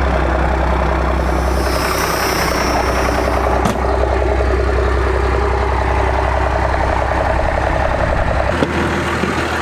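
First-generation Dodge Ram's 5.9 L 12-valve Cummins inline-six diesel idling steadily with a deep rumble, which drops off near the end.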